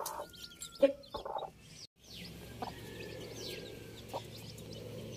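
Newly hatched country chicken chicks peeping continuously in short, high, falling peeps, with the mother hen clucking low in the first second and a half. A brief dropout comes near two seconds, and after it a steady low hum runs under the peeping.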